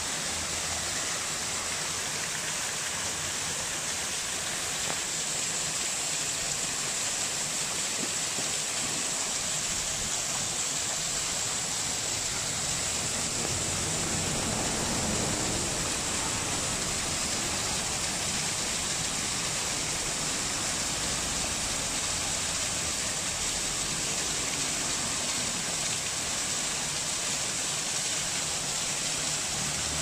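Small waterfall cascading down a rock face and spilling over a concrete weir into a pool: a steady rush of falling water.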